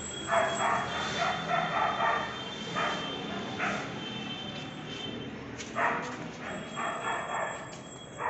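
A dog barking repeatedly, short barks coming every second or so through most of the clip, with a pause in the middle.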